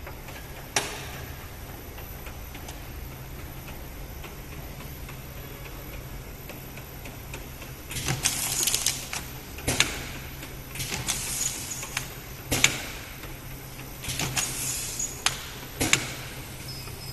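Automatic round-bottle labeling machine running, with a steady low motor hum. About a second in there is one sharp click, and from about halfway on it cycles roughly every three seconds: a rustling hiss followed by a sharp clack, three times over.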